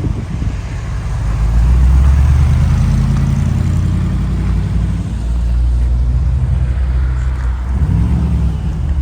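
Mercedes-Benz C 111-II engine and exhaust running as the car drives, a low, steady engine note that swells about one and a half seconds in, dips briefly a little past halfway and comes back.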